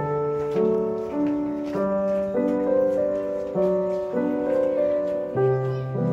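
Background music: a gentle piano piece, sustained chords and melody notes changing in a steady pulse about every half second.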